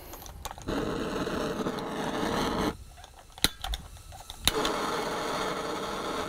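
Hand-held propane torch on a Coleman cylinder: gas hissing steadily, cut off after about two seconds, then three sharp igniter clicks and the torch lights and hisses steadily again.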